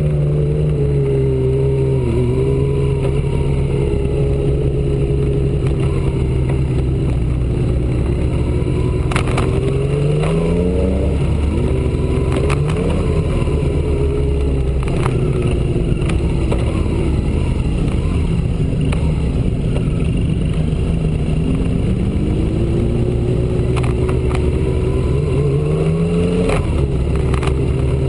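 V12 motorcycle engine heard from on board while riding at low revs, running steadily, with its pitch rising twice, around ten seconds in and again near the end, then dropping back as it shifts up. A few sharp clicks sound over it.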